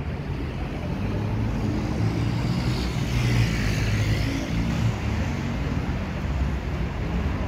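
Road traffic on a busy city street: a steady rumble of engines, with a vehicle passing close by that swells and fades about two to five seconds in.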